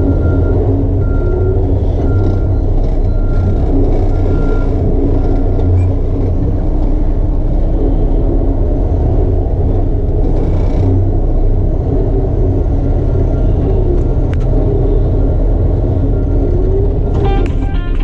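A truck engine runs with a steady low rumble. A reversing alarm beeps about every two-thirds of a second through the first six seconds and comes back faintly later on.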